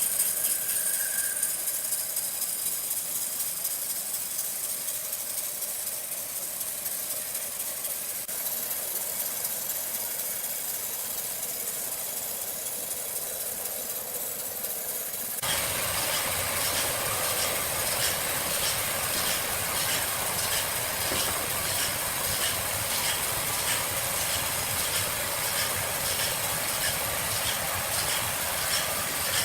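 Sawmill machinery running with a steady hiss, then, about halfway through, a sudden switch to louder mechanical clatter with a regular ticking beat.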